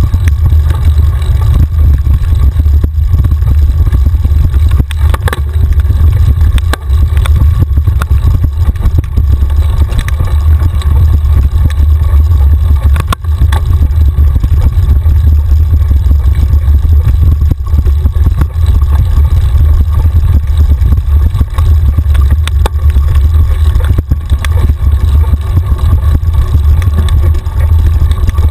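Heavy, steady wind buffeting and rumble on a bike-mounted camera's microphone as a mountain bike rides a dirt singletrack, broken by frequent knocks and rattles as the bike goes over rough ground.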